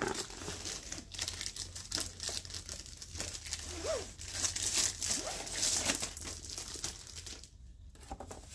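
Packaging crinkling and rustling as a rolled diamond painting canvas in its printed wrapper is picked up and handled, in irregular crackles that grow busiest about halfway through.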